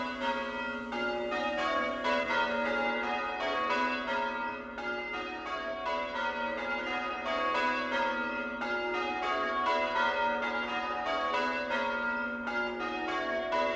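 A ring of tower bells hung on wheels, rung full-circle in English change ringing: a quick, even succession of strokes, each bell ringing on over the next.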